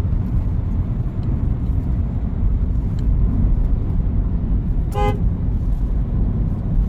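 Honda Grace Hybrid driving at speed: a steady low rumble of road and drivetrain noise, with one short horn toot about five seconds in.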